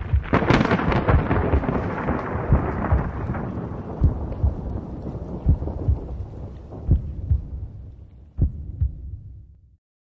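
A thunderclap that rolls on as a long rumble with a hiss of rain and many low thuds, fading away slowly and dying out shortly before the end: a thunderstorm sound effect.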